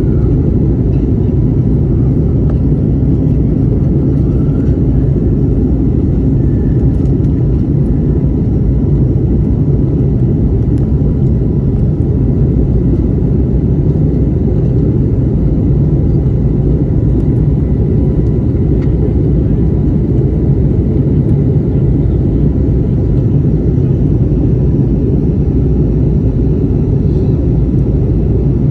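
Airbus A321LR cabin noise in the climb after takeoff: a steady low drone of jet engines and airflow from a seat over the wing, with a faint steady whine on top.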